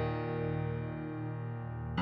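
Background music: a slow, soft piano piece, one chord held and slowly fading.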